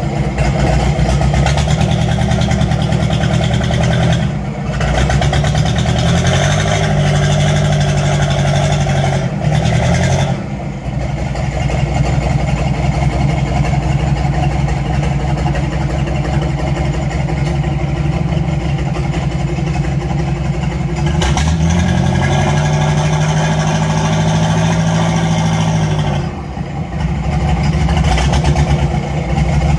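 Mitsubishi 4D31 four-cylinder diesel of a small cargo boat, run hard under load while the boat is aground. It is revved up and held twice, easing back briefly in between.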